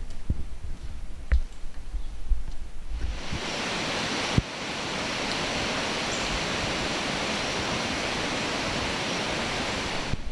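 Low, irregular thumps, then from about three seconds in a steady, even hiss that cuts off suddenly near the end.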